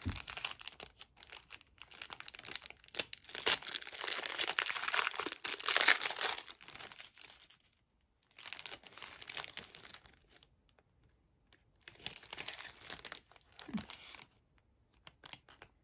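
Paper or plastic packaging rustling and crinkling while being handled, most likely while searching for an envelope. There is a long loud spell of rustling first, then it stops about seven and a half seconds in, and shorter bursts follow with quiet gaps between.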